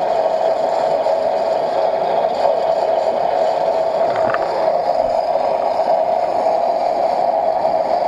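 Steady, even mechanical drone from a Lada Niva (VAZ 2121) being winched forward out of deep mud on a cable from its front bumper.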